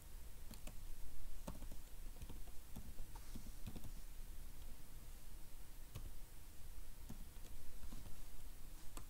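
Computer keyboard typing: scattered, irregular keystroke clicks.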